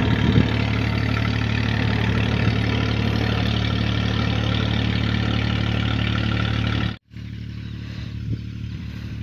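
An engine running steadily at a constant speed, a low even hum. About seven seconds in it cuts off suddenly, leaving a fainter steady hum.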